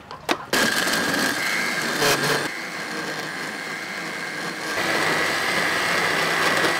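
Panasonic countertop blender switched on with a click, its motor then running steadily with a high whine as it blends a pear drink in its plastic jug. It eases a little in the middle and picks up again near the end.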